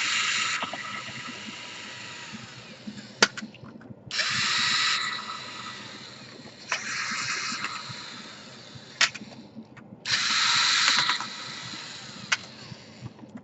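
Electric screwdriver whirring in short bursts of about a second, four times, backing out laptop case screws, with a few sharp clicks in between.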